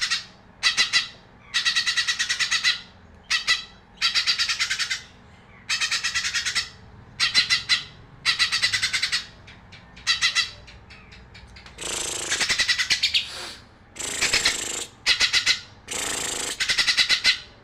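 Cucak ijo (green leafbird) singing in short bursts of rapid, repeated chattering notes, with brief pauses between phrases. From about twelve seconds in, the phrases turn harsher and fuller.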